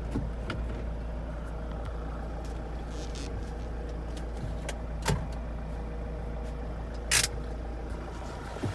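Ford Transit Custom van engine idling steadily, heard from inside the cab, with a sharp click about five seconds in and a louder one about seven seconds in.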